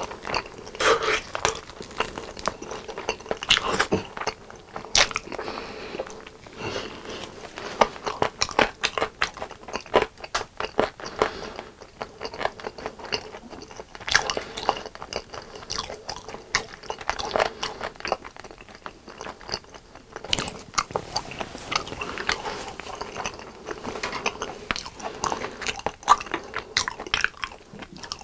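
Close-miked chewing and biting of sauced chicken drumstick meat: wet mouth sounds with many irregular sharp clicks and smacks.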